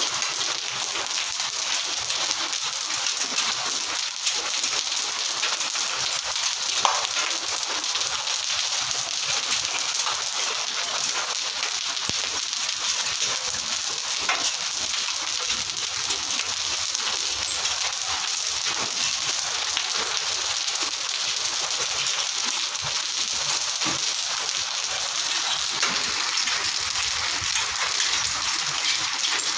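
Heavy rain mixed with hail pelting a tiled rooftop terrace and its metal railings, a steady dense patter.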